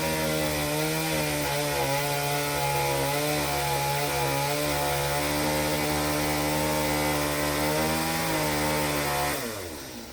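Chainsaw run at high revs, its pitch holding fairly steady with small dips, then dropping away near the end as it is throttled back.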